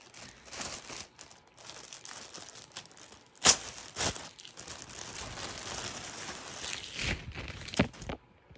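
Clear plastic clothing bag crinkling and rustling as it is handled and opened, with a few sharp, loud crackles about halfway through and again near the end. The rustling stops shortly before the end.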